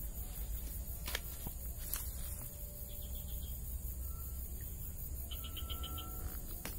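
Outdoor ambience at a pond: a low steady rumble, a few sharp clicks in the first two seconds, and short high chirps and pulsed calls in the second half.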